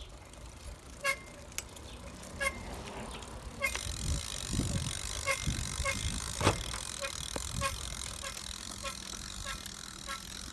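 Versatio handbike squeaking as it rolls: a short, high squeak repeating about once a second, then about twice a second from some four seconds in, over a low rolling rumble. The squeak is the fault the rider blames on the newly fitted front wheel.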